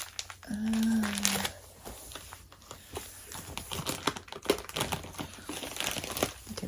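Packaging of a subscription box being handled and opened: scattered light clicks and rustling. A short hummed "mm" from a voice about half a second in.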